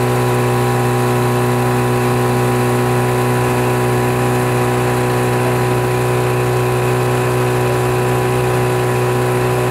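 Outboard motor of a coaching launch running steadily at an unchanging pitch.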